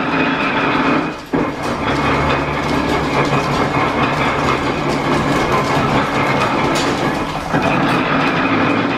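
1897 Whitcomb eight-foot metal planer running under belt drive, with a loud, steady mechanical clatter of belts and gears as the table travels. Just after a second in the sound briefly drops and comes straight back, and it changes again about seven and a half seconds in, as the table reverses its stroke.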